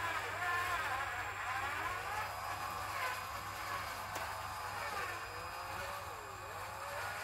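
Whine of a 1/16-scale RC truck's cordless-screwdriver motor driving WPL axles as the truck crawls over rocks, its pitch rising and falling.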